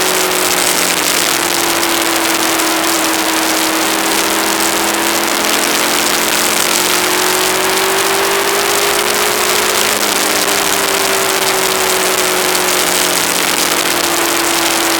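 Aprilia ETV1000 Caponord's V-twin engine running while riding. Its note climbs slowly to a peak about two-thirds of the way through, then eases off, under a loud, steady rush of wind noise.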